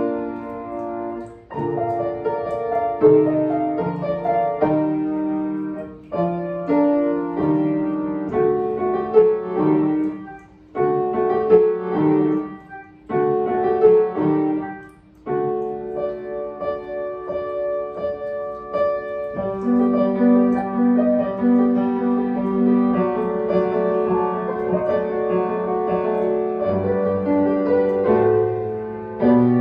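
Solo piano being played: chords broken by a few brief pauses in the first half, then a smoother, sustained passage from about halfway through.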